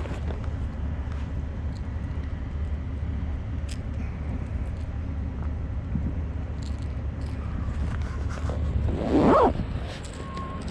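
Steady low outdoor rumble, with one brief loud whoosh about nine seconds in.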